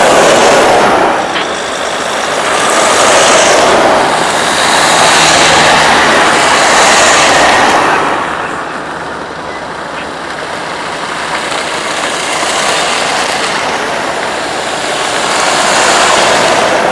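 Loud rushing noise of a vehicle driving, swelling and easing every few seconds.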